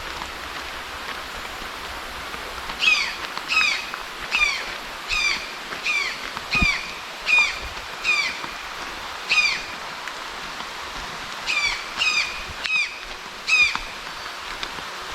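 A bird calling again and again, a short downward-sweeping note about every three-quarters of a second, with a short pause midway. Underneath runs the steady rush of the waterfall's water.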